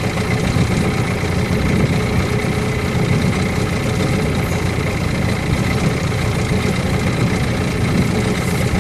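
Small boat's motor running steadily at trolling speed, heard close up as a constant engine drone.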